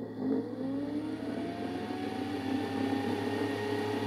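Small computer cooling fan switching on under thermostat control and spinning up: a whine rises in pitch over about two seconds, then levels off into a steady running hum.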